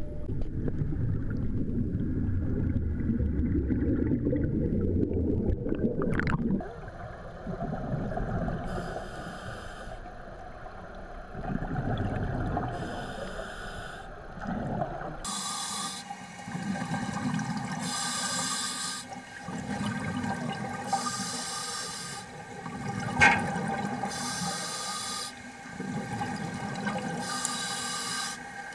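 Underwater sound: a loud churning rush of water and bubbles for the first several seconds, then a diver's breathing through a regulator, a hissing inhale alternating with a bubbling exhale about every three seconds. One sharp click sounds about two-thirds of the way through.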